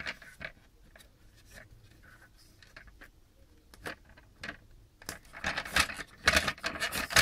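Hard plastic clicking and scraping as a SIAMP Optima 49 dual flush valve is twisted into its cradle to lock it. There are a few scattered light clicks at first, then a quick run of clicks and rattles over the last couple of seconds.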